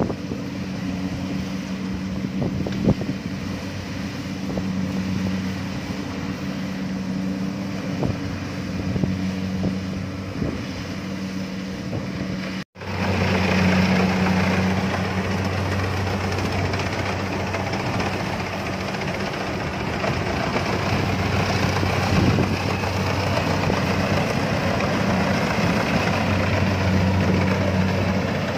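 Kubota DC70 combine harvester's diesel engine running steadily with a low hum while it works the rice crop. About halfway through the sound drops out for an instant, then comes back louder, with more hiss from the working machine.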